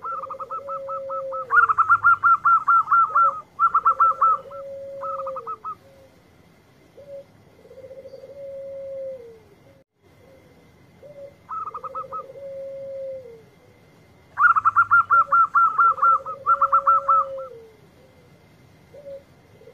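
Zebra dove (perkutut) cooing: a low drawn-out coo with a falling end repeats about every two and a half seconds. Over it come louder, higher phrases of very rapid trilled coo notes, in bursts in the first five seconds and again from the middle to near the end.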